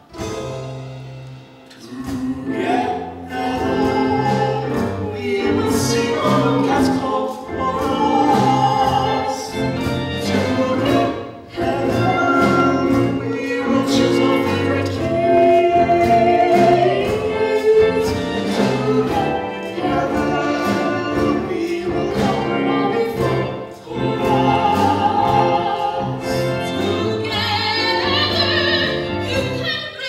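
Musical theatre number: performers singing a song over instrumental accompaniment with a moving bass line.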